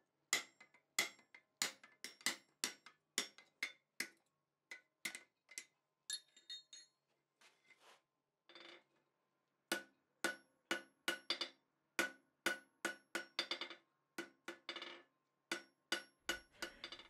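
Hand hammer striking hot steel on an anvil, each blow ringing, about one and a half to two blows a second, as a tapered round drift is driven into a punched hole in red-hot bar. After a few seconds' pause with faint clinks, the hammering resumes as the hot bar end is struck over the anvil edge.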